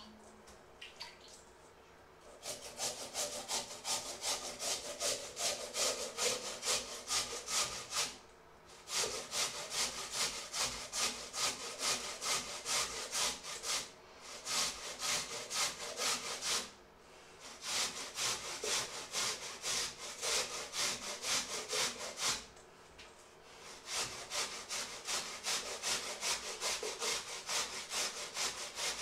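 Peeled raw potatoes being grated on a hand-held metal grater, rasping strokes about three a second. The grating starts about two and a half seconds in and comes in runs of several seconds, with brief pauses between them.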